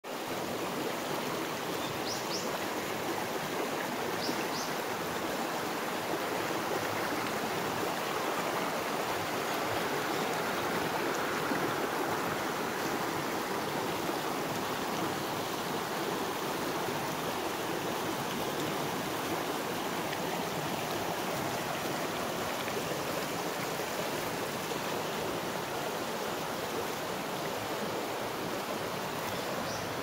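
Mountain stream flowing and splashing over rocks in small rapids, a steady rushing sound. A few faint, brief high bird chirps come through about two and four seconds in.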